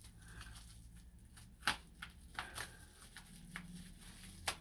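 Faint handling noise: a few light clicks and taps from small objects being moved about, the sharpest just before the end, over a low steady room hum.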